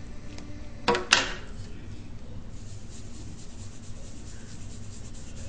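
A sharp double clack about a second in, the loudest thing heard, then a foam ink blending tool rubbing Distress ink onto a paper tag in quick, scratchy strokes.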